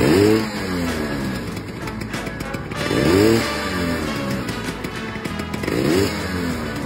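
A 1979 Lambretta GP's single-cylinder two-stroke engine is blipped three times, about three seconds apart: each time the pitch rises quickly and falls back. Between the blips it runs at a steady idle.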